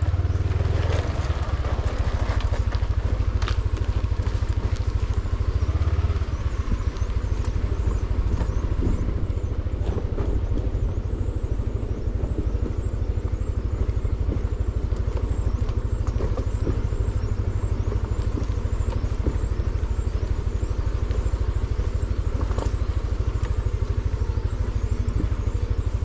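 Motor scooter's engine running steadily while it rides a rough dirt road, heard as an even low rumble with small scattered clicks and rattles.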